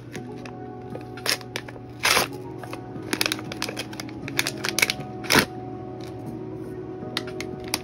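Crinkling and rustling of a foil blind-box bag being pulled open, with scattered sharp clicks and crackles as the small vinyl figure is handled, over soft background music.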